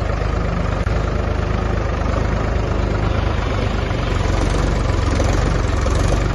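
Mahindra 275 DI XP tractor's three-cylinder diesel engine running steadily while its front loader works.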